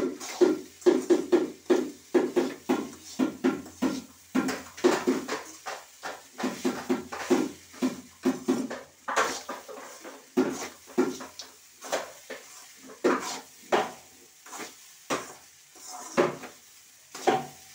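Metal spoon knocking and scraping against an aluminium kadai while stirring fried rice: a quick, uneven run of clinks, about two or three a second, growing sparser in the second half.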